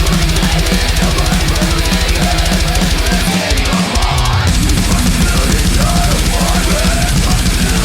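Death metal/grindcore music: rapid kick drums under distorted guitars. The kick drums drop out briefly about three and a half seconds in, then come back.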